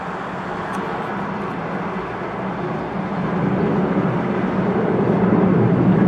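Fighter jet engine rumbling overhead, growing steadily louder from about halfway through as the jet approaches.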